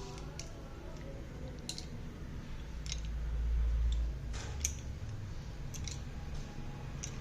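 Scattered light clicks and taps of slate pencils and their packaging being handled, about ten in all, with a low rumble of handling noise from about three to four seconds in.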